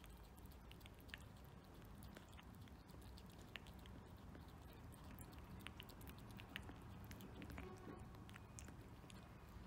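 A cat faintly licking soft food from a glass dish: small, scattered clicks of its tongue and mouth.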